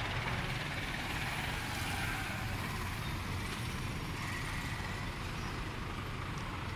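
Steady background street traffic noise, a continuous rumble and hiss with no distinct events.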